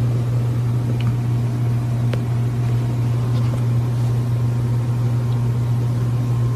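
A steady low hum that holds the same pitch throughout, with a few faint clicks over it.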